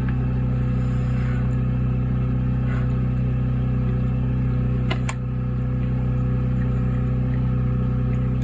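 Steady low mechanical hum, like an engine or motor running, with a short click and a brief dip about five seconds in.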